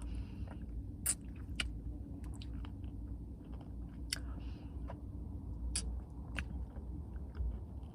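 A person chewing a mouthful of caramel toffee cookie Blizzard, with a few short, sharp crunches or clicks from the hard toffee and cookie pieces, over a steady low hum.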